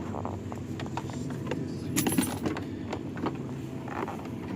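Scattered small clicks and metallic jingling, the loudest cluster about two seconds in, as keys and small car parts are handled, over a steady low hum.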